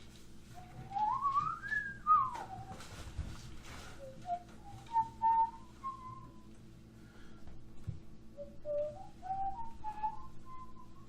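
A person whistling: one long swoop up and back down, then two short phrases of stepped notes climbing slowly, with a few small clicks and a steady low hum underneath.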